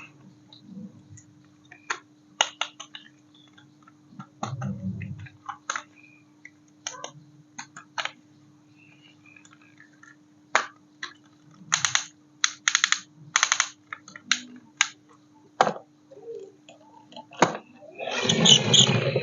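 Scattered sharp clicks and taps from handling a plastic toy, some in quick runs of three or four, over a faint steady hum. A louder, denser jumble of sound starts near the end.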